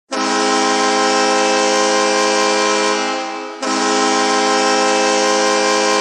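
Bridgeport Islanders arena hockey goal horn blowing a steady, many-toned blast. It tapers off a little past halfway, and a second long blast starts at once.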